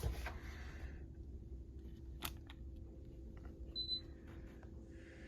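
Quiet indoor room tone with a steady low hum, a sharp click about two seconds in, a few faint ticks, and one short high electronic beep near four seconds.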